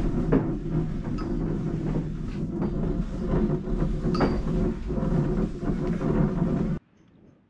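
Wooden cable reel turning on a steel bar axle as double-braid rope is pulled off it: a steady rumble with scattered knocks, cutting off suddenly near the end.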